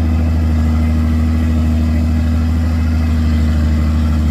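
Engine idling steadily with a deep, even drone that holds unchanged throughout.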